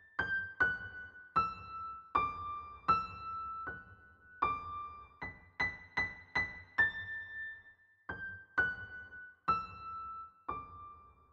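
Background music: a slow, high melody on a piano-like keyboard, about fifteen notes played one at a time, each struck and left to ring, with the last note held near the end.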